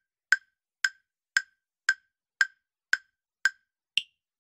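Countdown-timer sound effect ticking about twice a second, each tick a short click with a brief ring. A last, higher-pitched tick about four seconds in marks the timer reaching zero.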